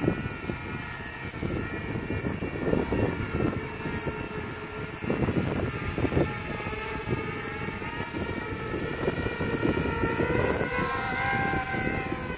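RoboCat 270 racing quadcopter's motors and propellers whining in flight, the pitch rising and falling with the throttle and climbing near the end. Wind buffets the microphone with low gusty rumbles.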